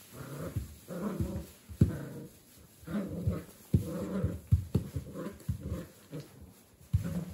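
Kooikerhondje puppy play-growling in repeated short bursts while tugging and shaking a toy, with a few sharp knocks mixed in.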